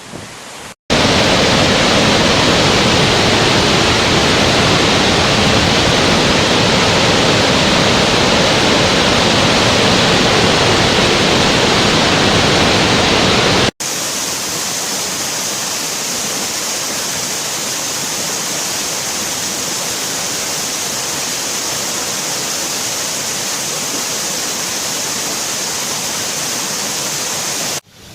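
Waterfall water rushing and splashing, a steady dense roar. About halfway through it cuts suddenly to a second, quieter waterfall with a thinner, hissier sound.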